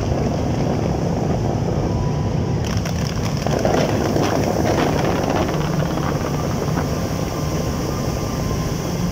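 Continuous rumble of a large fireworks display, with many bursts running together, and a spell of sharp crackling from about three to five seconds in.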